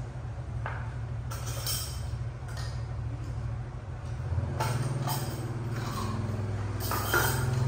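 Bowls and chopsticks clinking now and then during a meal, over a steady low engine hum that grows louder about halfway through.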